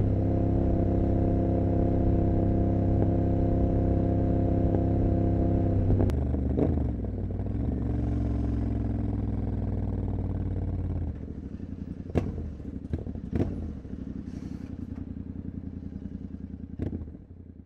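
Royal Enfield Continental GT 650's parallel-twin engine through Emgo cafe mufflers, running steadily under way. About six seconds in the throttle closes and the engine note drops; about eleven seconds in it falls to a quieter low rumble as the bike slows. A few sharp clicks come near the end.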